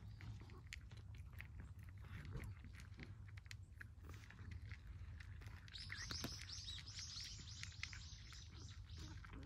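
Two cats crunching dry kibble, a faint stream of small crunches and clicks. Small birds chirp high and rapidly from about six seconds in.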